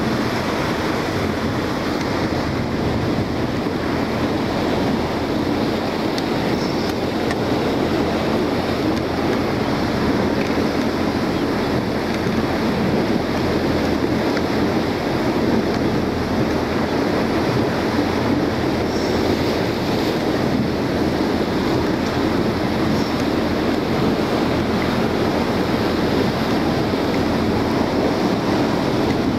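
Small motorboat under way: a steady rush of water along the hull and wind buffeting the microphone, with the boat's engine running beneath.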